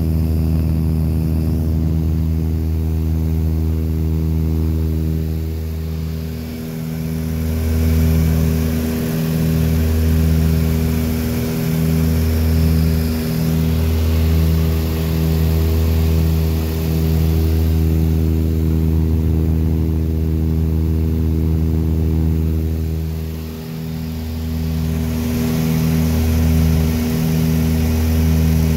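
Small propeller airplane's engine and propeller droning steadily, heard from inside the cabin, the low hum wavering in a slow, regular rise and fall.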